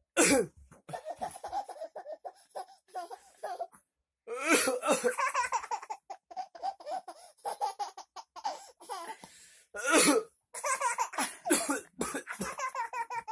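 A person coughing hard three times, at the start, about four and a half seconds in and about ten seconds in, while another person laughs in quick, choppy bursts between the coughs.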